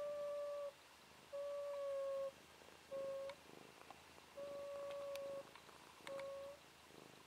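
Sleeping domestic cat snoring with a whistle through its nose: five steady high whistling tones, some short and some about a second long, one with each breath every second or two. A few faint clicks between them.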